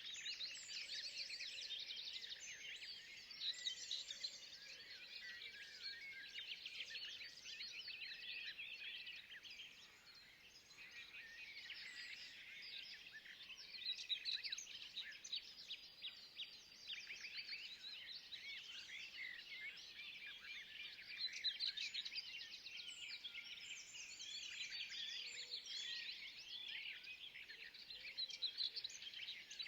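Dense chorus of many small birds chirping and trilling, calls overlapping without a break; it thins briefly about ten seconds in.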